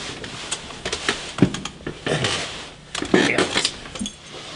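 Knocks and rustling of a man moving about on a bunk, with short grunting and laughing sounds from a man's voice.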